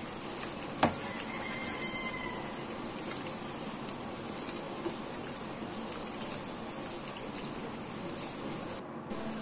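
Steady sizzling hiss of sliced onions frying in hot oil in a kadhai, with a single light click about a second in.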